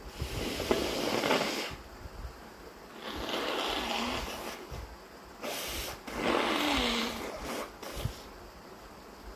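A person breathing hard and noisily through the nose: three long snorting breaths, each lasting a second or two, then a short one near the end. This is the build-up of a sneeze set off with chhinkni snuff and a tissue in the nose.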